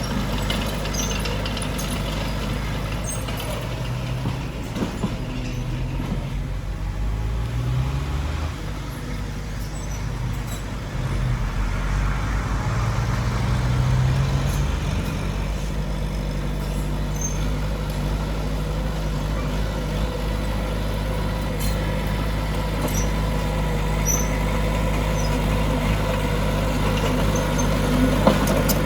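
Diesel engines of earthmoving machinery working under load, a steady deep drone whose engine note rises twice as it revs.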